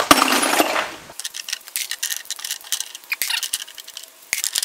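Steel sockets and wrenches clattering against each other as they go into a bucket, for about the first second, then scattered light metallic clinks as more sockets are picked out of a plastic tool case.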